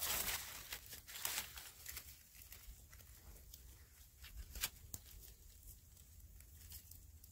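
Aluminium foil crinkling and rustling as it is peeled back from a foil-baked fish, with scattered sharp crackles; busier and louder in the first two seconds, then fainter and sparser.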